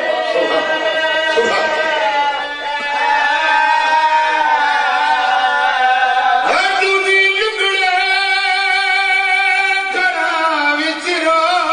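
A zakir's male voice, amplified through a microphone, singing a long, drawn-out line of his recitation. The notes are held and wavering, with a sharp upward slide about six and a half seconds in.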